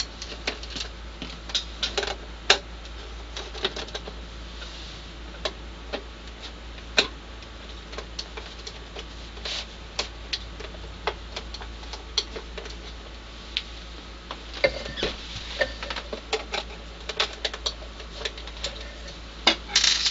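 Screwdriver backing small screws out of a plastic LCD monitor case: irregular sharp clicks and ticks throughout, over a low steady hum.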